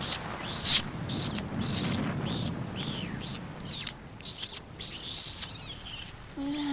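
A quick run of wet, squeaky smacks and drips, each a short click with a little squeak, over a low rushing hiss.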